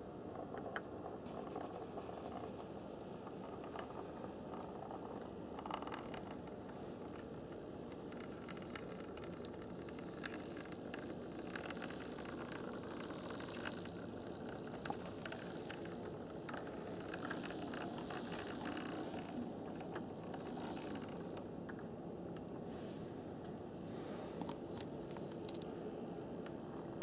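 HO-scale brass model steam locomotive and tender running on track: a steady mechanical running noise with scattered small clicks and rattles.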